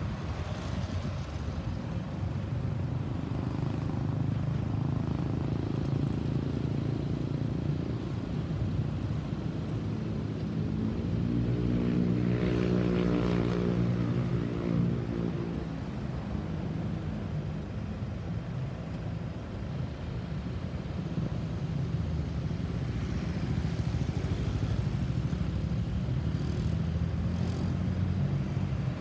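Steady low rumble of road traffic, with one motor vehicle passing close by about halfway through, its engine note swelling briefly and fading.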